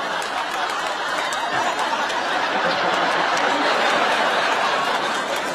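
Studio audience laughing, a long, sustained wave of crowd laughter at a sitcom punchline.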